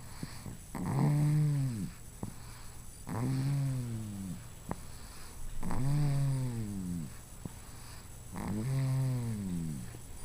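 Steady rhythmic snoring of a sleeper: four pitched snores about two and a half seconds apart, each lasting about a second and rising then falling in pitch.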